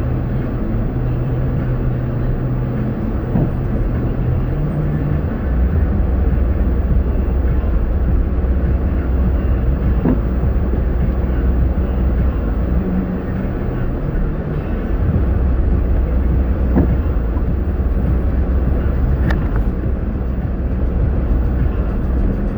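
Car driving: steady engine hum and road noise, the engine's low tone dropping in pitch about five seconds in and again about fifteen seconds in as the engine speed changes.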